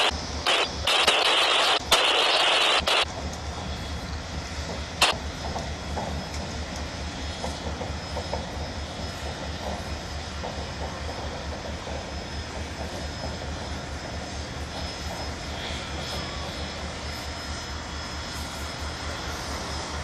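Loud steam hissing from the 4-8-4 steam locomotive Milwaukee Road No. 261, in several bursts with short breaks, cutting off about three seconds in. After that a steady, low, evenly pulsing rumble of running machinery, with one sharp click about five seconds in.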